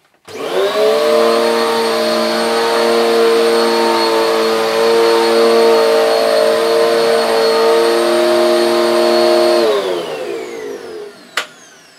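Hoover Eco G Turbo Power (UTE1100) bagless cyclonic upright vacuum cleaner switched on and run over carpet. Its motor spins up quickly, then runs with a steady hum and a thin high whine. Near ten seconds in it is switched off and winds down in falling pitch, followed by a single click.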